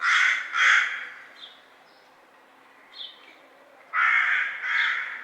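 Crow cawing: two harsh caws in quick succession, then a pause with a few faint short high notes, and two more caws about four seconds in.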